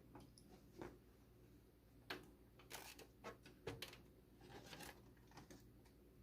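Near silence over a faint steady hum, broken by scattered faint clicks and taps of hands handling hard objects, a few to the second at most.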